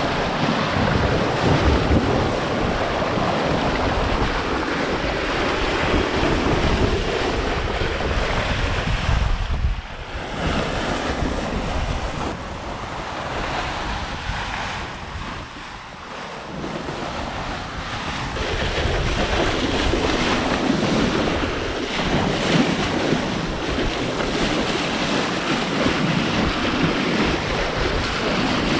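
Wind buffeting the microphone over the rush of water along the hull of a Hallberg-Rassy 54 sailing yacht sailing fast on a gusty beam reach. The wind noise eases about a third of the way in and builds again past the middle.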